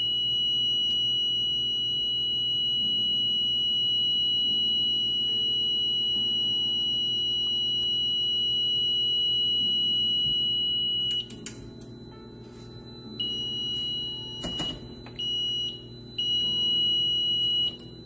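Fire alarm control panel's buzzer sounding one steady high-pitched tone while the Mircom FX-2000 reboots and runs its self-checks. About 11 seconds in it cuts off, then comes back in a few on-off stretches of uneven length as the panel comes up reporting a trouble.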